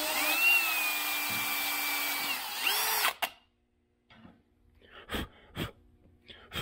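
Cordless drill boring a hole through a wooden drawer-pull knob: the motor whine spins up, holds steady, winds down, is revved briefly once more and stops about three seconds in. A few light knocks follow near the end.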